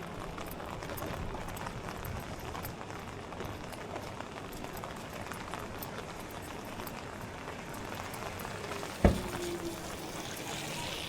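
Steady rain falling on the street, an even hiss and patter, with a single sharp knock about nine seconds in.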